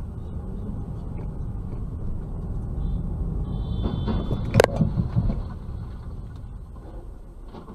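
Dashcam audio with a steady low road and engine rumble. Then comes a brief high tone and, about four and a half seconds in, a single sharp crash as two cars collide in the intersection ahead.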